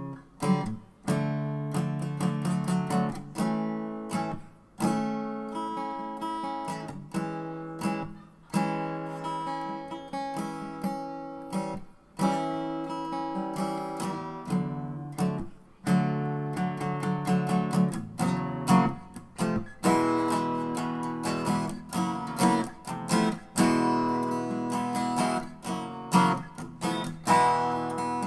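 Background music: acoustic guitar strumming chords with a steady rhythm.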